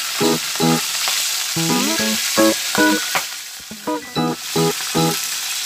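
Hot oil sizzling steadily around two whole fish frying in a pan. Background music of short repeated notes plays over it.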